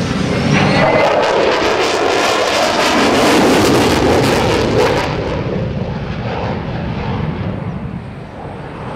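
F-16 Fighting Falcon jet engine at full afterburner in a fast pass: a loud crackling roar that peaks in the middle, then fades as the jet moves away.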